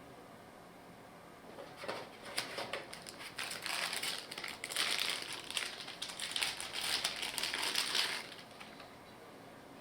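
Packaging crinkling and rustling as it is handled, a dense crackle of small clicks that starts about two seconds in and stops about a second and a half before the end.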